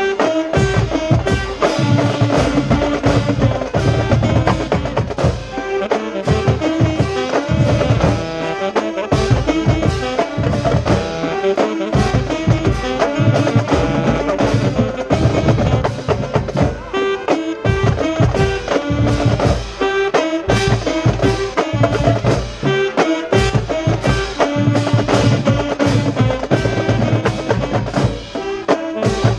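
High school marching band playing a pop-song arrangement: brass melody over a driving drum line with steady, rhythmic drum strokes.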